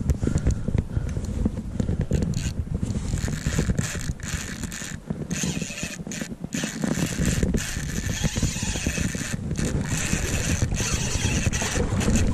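Spinning reel being worked while playing a salmon, its mechanism turning in short spells, over a heavy rumble of wind and handling on the camera microphone.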